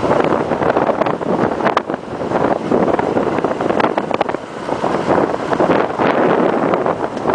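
Strong wind buffeting the microphone in uneven gusts, over the rushing noise of a moving vehicle.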